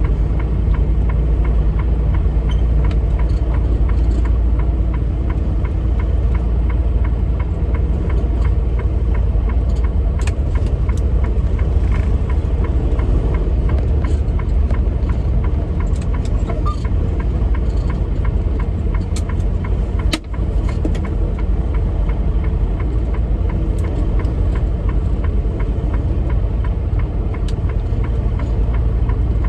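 Diesel engine of a tractor-trailer rig running with a steady low rumble, with scattered light clicks and a brief dip about twenty seconds in.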